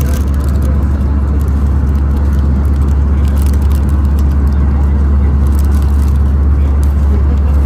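Steady in-flight cabin noise of an Airbus A320, heard from a window seat: a loud, even, deep rumble of airflow and the IAE V2500 engines.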